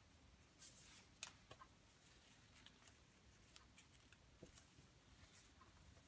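Near silence with faint rustles and soft ticks of paracord sliding through fingers and being pulled tight into a cobra-weave knot, with a brief swish and a sharper tick about a second in.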